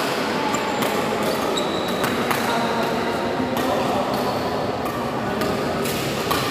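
Badminton play in a large, echoing sports hall: sharp racket hits on the shuttlecock and short squeaks of court shoes, over a constant murmur of voices.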